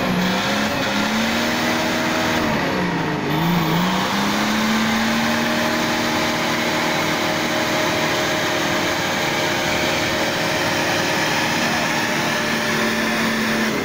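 Nissan Patrol 3.3 turbo-diesel engine running under load while driving off-road, with a steady pitch that dips about three seconds in and then climbs back and holds.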